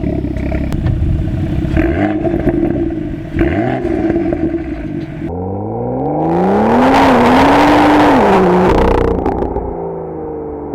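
BMW M2's 3.0-litre turbocharged straight-six through an enlarged aftermarket exhaust, running with a hoarse, uneven rumble. About five seconds in it accelerates hard, its pitch climbing to high revs and holding there as the loudest part, then eases off and falls away.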